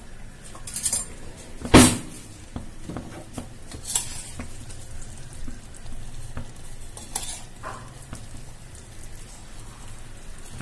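Steel spoons clinking and scraping against a steel pot as rasgulla balls are spooned into the reduced milk for rasmalai, with a few sharp clinks, the loudest about two seconds in.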